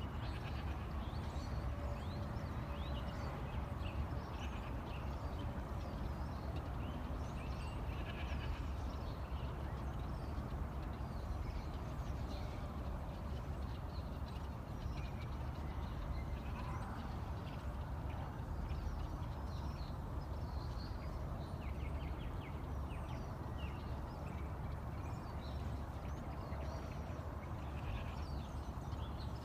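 Faint bleating from goats and sheep over a steady low rumble, with many short high chirps throughout.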